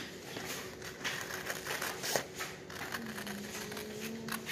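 Scissors snipping through a sheet of printer paper, with the paper rustling as it is turned and cut along a curve.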